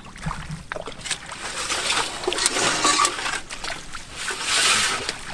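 Water splashing and sloshing in shallow swamp water, louder about two and a half seconds in and again near the end.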